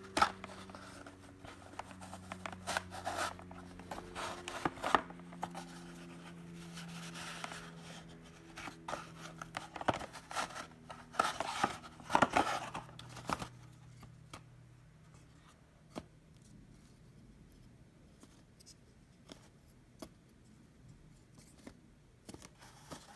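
Trading cards being slid out and handled by hand: paper rustling, scraping and small clicks, busiest in the first half and sparser after about 14 seconds.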